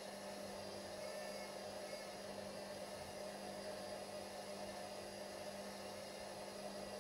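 Steady electrical hum with an even hiss, from a 12 V power inverter and its bench power supply running a light load of about 26 W.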